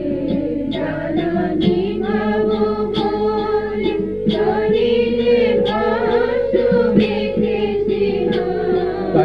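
Kirtan devotional music: singing over steady held accompanying notes, with regular percussive strikes.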